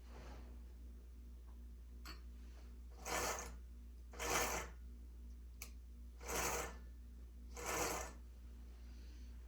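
Four short rasping strokes, each about half a second and unevenly spaced, with a light click or two between them, over a steady low hum.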